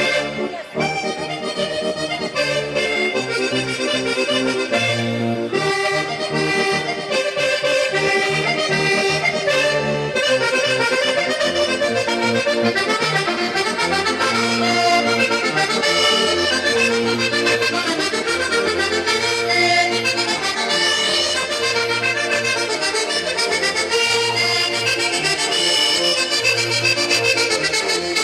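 Sardinian organetto (diatonic button accordion) and piano accordion playing a ballu tundu dance tune, a continuous melody over a regular pulsing bass.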